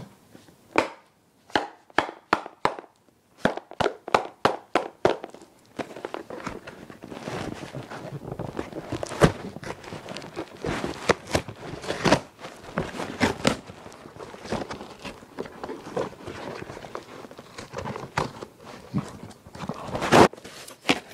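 A package being opened by hand. First a quick run of sharp snaps, about two or three a second, then many seconds of dense crinkling and rustling of the packing material, with a final loud snap near the end.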